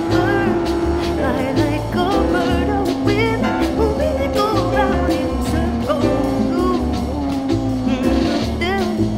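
Background music: a song with a steady, pulsing bass line and a melody over it.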